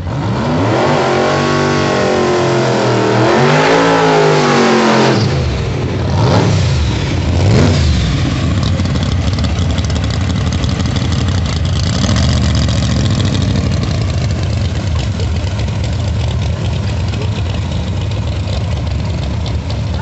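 Drag-racing Camaro's engine revving hard, its pitch climbing and falling twice in the first five seconds, then two sharp blips of the throttle about six and eight seconds in, before it settles into a steady idle while staging at the line.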